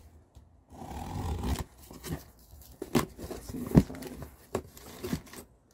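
Packing tape ripped open on a cardboard shipping box, a rasping tear about a second in, followed by the cardboard flaps being handled with several sharp knocks and rustles, the loudest knock near the middle.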